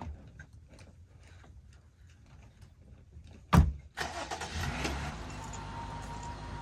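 Faint rustling and clicks, then one loud thump about halfway through. After that a vehicle engine runs steadily with a low rumble.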